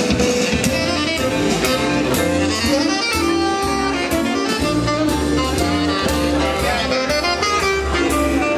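A jazz quartet playing a swing tune: a melody line of held notes over bass and a steady drum beat.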